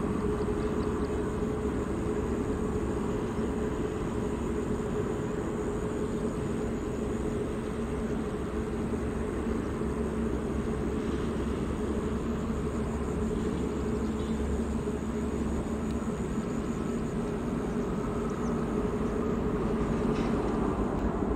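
Airliner jet engines running, heard as a steady drone with a constant hum under an even rush of noise.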